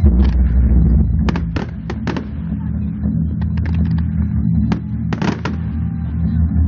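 Display fireworks launching and bursting in a string of sharp bangs: a run of them about a second and a half in, and another cluster a little after five seconds. A show's music soundtrack with a steady low bass plays underneath.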